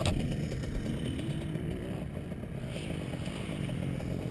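A short thud and scrape right at the start, then a dirt bike engine running at a steady low idle.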